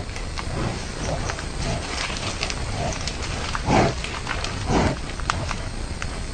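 Rhinoceros snorting: three short puffs of breath, the last two about a second apart, over small crackles of twigs and leaf litter as the animals forage.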